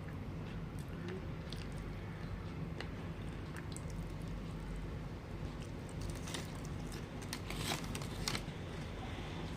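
Close-up chewing and biting of sushi, with irregular wet mouth clicks and small crunches, thickest about eight seconds in, over a steady low hum.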